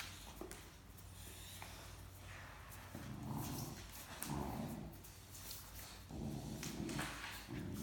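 Great Dane puppy play-growling over a stuffed toy in a tug-of-war: four short low growls in the second half, with scattered clicks.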